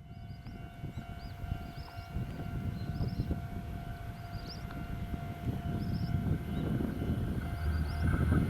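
Railway level-crossing alarm sounding as a train approaches, its rumble growing steadily louder. Small birds chirp now and then above it.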